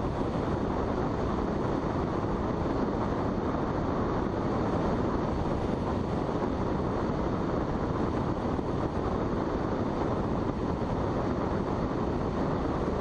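Steady, unchanging in-flight rushing noise of a sailplane on aerotow behind a Cessna tow plane.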